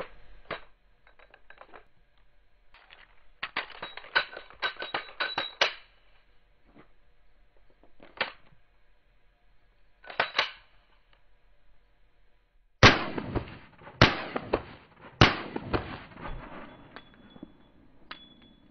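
Metallic clicking and clatter of a 9mm semi-automatic pistol's slide being racked and worked in a malfunction-clearing drill. Then come three pistol shots about a second apart, each ringing out.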